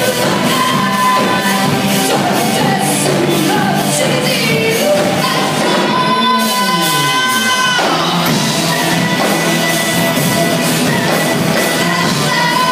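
Live rock band playing: electric guitars, bass and drums with a singer. About six seconds in, a sound slides down in pitch for about two seconds before the band carries on.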